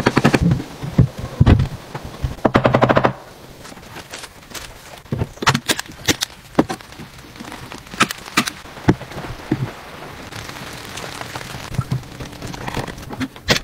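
Carpentry work on a wooden window frame: a fast clattering run of impacts for about the first three seconds, then scattered sharp knocks and taps of tools on wood.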